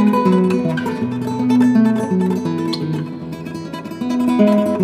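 Background music: an acoustic guitar playing a plucked melody with strummed chords.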